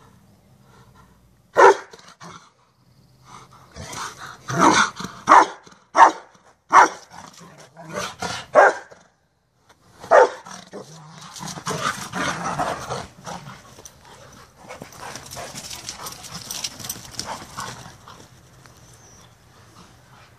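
Rottweiler barking in play: one sharp bark about two seconds in, a quick run of about eight barks between four and nine seconds, and one more near ten seconds. After that comes a longer stretch of quieter, rougher noise.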